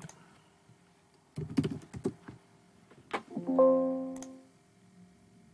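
A few computer keyboard and mouse clicks, then, about three and a half seconds in, a Windows system alert chime rings and dies away over about a second as an 'export successful' information dialog pops up, and one more mouse click follows.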